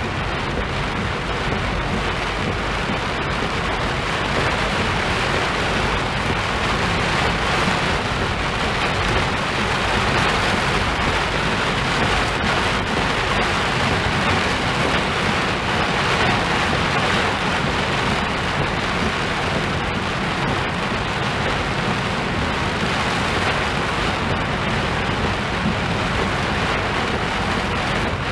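Heavy downpour heard from inside a moving car: a loud, steady hiss of rain on the roof and windscreen over a low road rumble, with no let-up.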